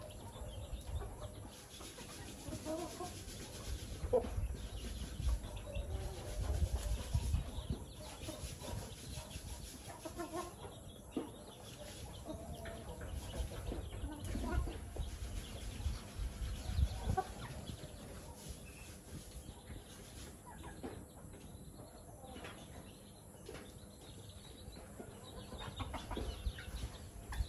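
Chickens clucking softly and intermittently as they peck at food on the ground, short scattered calls from several birds. A low rumble comes and goes underneath.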